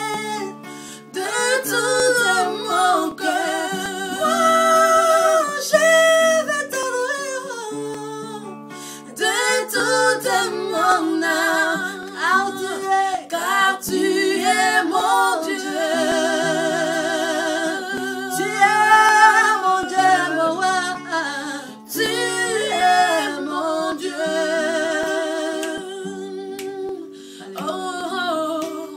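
Two women singing a French worship song into a handheld microphone, their held notes wavering with vibrato, over steady backing music.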